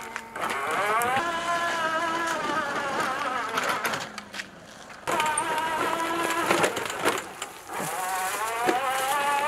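Battery-powered electric motor of a homemade miniature auto-rickshaw whining as it drives, its pitch rising and falling as it speeds up and slows. The whine drops away for about a second around four seconds in, then comes back abruptly.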